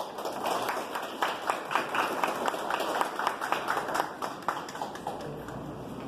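A small group clapping their hands, dying away about five seconds in.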